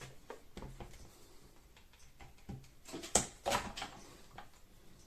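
A 1 mm Allen key pressed into the release holes of a Vax OnePwr battery pack's plastic casing gives scattered plastic clicks and scrapes. A louder cluster of clicks comes about three seconds in as the casing's internal clips pop free.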